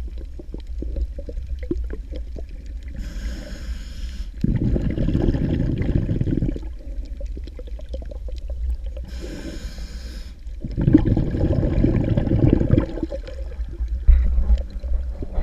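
Scuba breathing through a regulator heard underwater: a short hissing inhale followed by a longer rumble of exhaled bubbles, twice, over a steady low underwater rumble.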